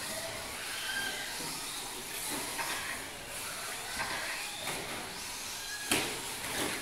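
Radio-controlled short course trucks racing on a dirt track: a steady hiss of tyres and drivetrains with brief rising and falling motor whines as the trucks pass, and one sharp knock about six seconds in.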